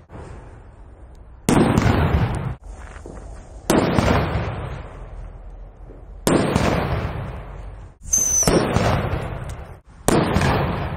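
Five loud firecracker bangs, about two seconds apart, each followed by a long echo that dies away.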